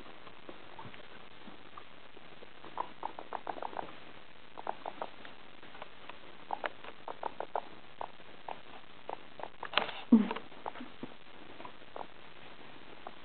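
Guinea pigs making short, soft clicking noises in irregular runs of a few a second, with one louder short sound about ten seconds in.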